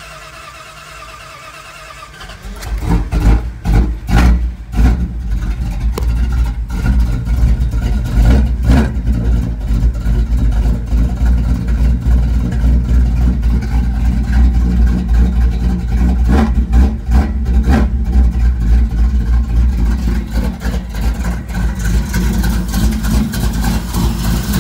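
Old Dodge pickup's carbureted engine: the starter cranks for about two and a half seconds, then the engine catches, is revved in a few quick blips and settles into a steady idle. It is the first start after a new alternator has been fitted.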